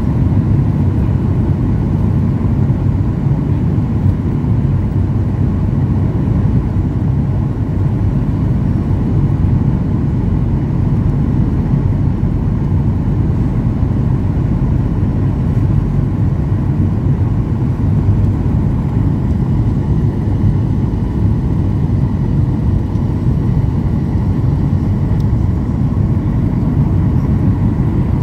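Cabin noise inside a Boeing 737-800 airliner: a steady low rumble of the jet's engines and airflow, unchanging throughout.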